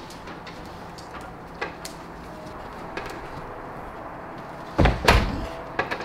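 A front door being pushed shut: two heavy thuds close together near the end as it closes and latches. A few faint light clicks come before it.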